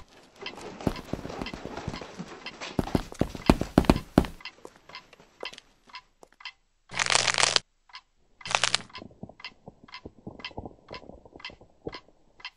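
Dense crackling and clicking. About seven and eight and a half seconds in come two short bursts of hiss over a low hum, then a regular ticking about two and a half times a second.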